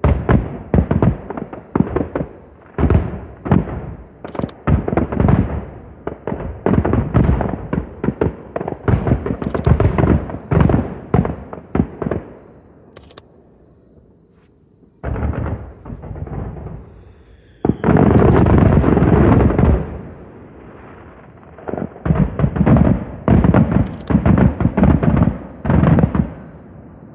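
Firework display: aerial shells bursting in rapid volleys of bangs, with a short lull about halfway. A few seconds after the lull comes a couple of seconds of unbroken dense bursting, then another quick run of bangs that dies away near the end.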